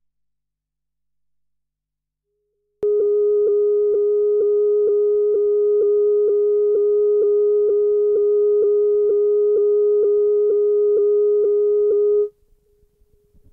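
A steady single-pitched tone, a little below 500 Hz, played back from reel-to-reel tape, with faint clicks about twice a second. It starts abruptly about three seconds in after dead silence, runs for about nine seconds, and cuts off abruptly, leaving faint low noise.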